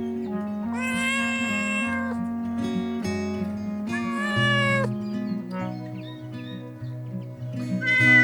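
Cat meowing over gentle plucked-guitar music: two long meows of about a second each, the second falling in pitch at its end, and a short one near the end.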